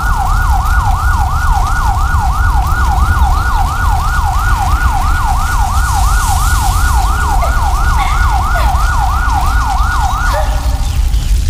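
Emergency vehicle siren in a fast yelp, about three quick rising-and-falling sweeps a second, over a steady low rumble; the siren stops near the end.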